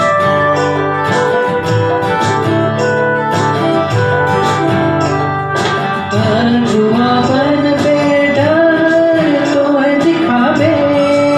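Live worship song on a Yamaha electronic keyboard and a strummed acoustic guitar; the first half is instrumental, and a man starts singing into a microphone about six seconds in.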